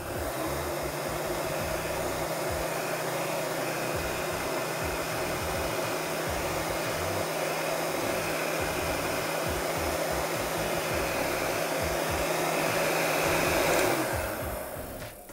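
Electric heat gun running steadily: an even rush of blown air over a low hum, dying away in the last second or so as it is switched off.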